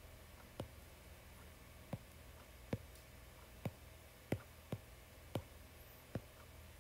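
Fingertip taps on an iPad touchscreen while typing a number on the on-screen keyboard: about eight faint separate taps, irregularly spaced, roughly one every three-quarters of a second.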